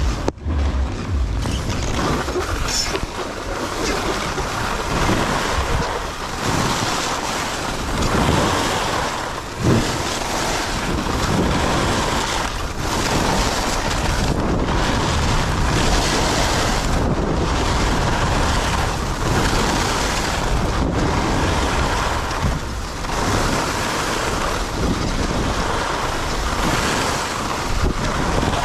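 Wind rushing over the microphone together with skis scraping over groomed snow on a fast downhill run, the rush swelling and easing every couple of seconds.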